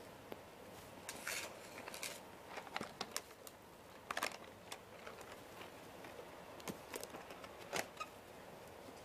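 Faint handling noise: scattered light clicks and rustles over a low room hiss, busiest in the first half and again near the end.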